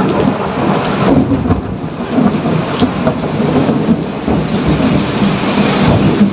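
Thunderstorm: steady heavy rain with thunder rumbling continuously underneath.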